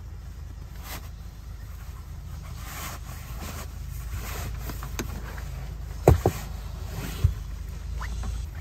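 Steady low vehicle rumble, with a few sharp knocks and thuds; the loudest are two close together about six seconds in and another a second later.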